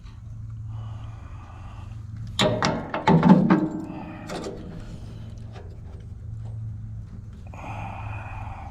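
Metal clanks and knocks from working the belt-tension adjustment on a Wood-Mizer LT15 sawmill with a wrench, loudest in a cluster about two and a half to three and a half seconds in. Quieter scraping and handling noise comes before and after it, over a low steady hum.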